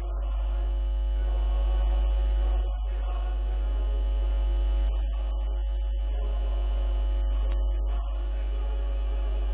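Music with long sustained notes over a strong, steady low hum.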